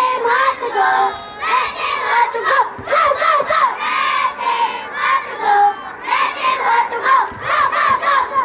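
A group of children shouting and cheering together in short, repeated bursts of many high voices at once.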